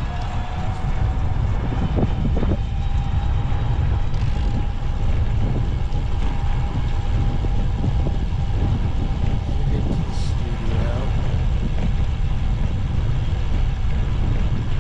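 Wind rumble and road noise on the microphone of a moving bicycle, a heavy, steady low rumble with a faint steady whine above it.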